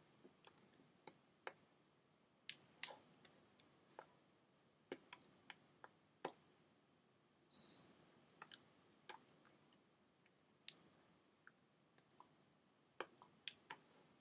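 Near silence broken by irregular faint sharp clicks and taps, the small incidental sounds of a person signing in sign language with ringed hands while silently mouthing. There is one brief high squeak a little past halfway.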